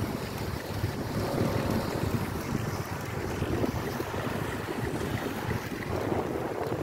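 Wind buffeting the microphone of a phone held while riding a road bike, a steady rushing noise mixed with the hiss of tyres on the wet road.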